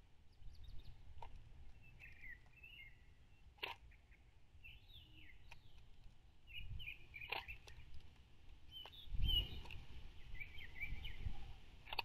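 Small songbirds chirping in the background, with a few sharp taps and clicks as a blue jay works at a plastic tray feeder of seeds. A low rumble of wind on the microphone runs underneath, swelling about nine seconds in.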